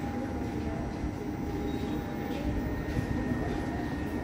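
KVB light-rail tram standing at the platform, its equipment giving a steady electrical hum. A thin high whine comes in about two seconds in, over steady station background noise.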